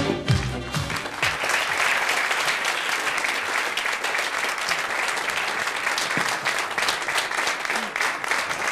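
Studio audience applauding steadily. A short music sting fades out under the clapping about a second in.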